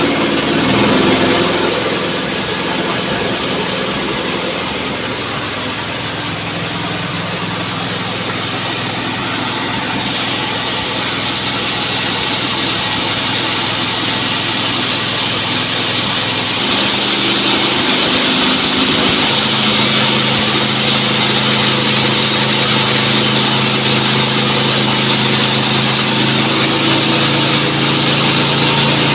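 Horizontal band sawmill running, driven by a 25 HP motor, with a steady machine hum under a broad hiss. The sound shifts about ten seconds in, and again around seventeen to nineteen seconds, when a higher hiss grows stronger and the hum settles at a new pitch.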